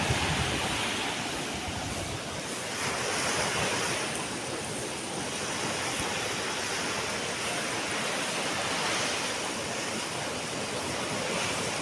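Ocean surf: a steady rush of waves washing on the shore, rising and falling in loudness every few seconds.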